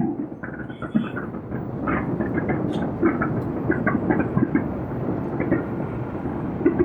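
Fireworks display going off in rapid succession: a continuous rumble of irregular booms and crackles, with a louder burst near the end.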